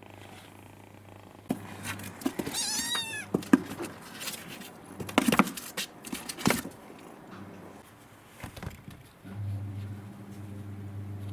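A cat meowing once, a high, wavering call a little under a second long, amid scattered knocks and rustling from about one and a half to six and a half seconds in. A steady low hum sets in near the end.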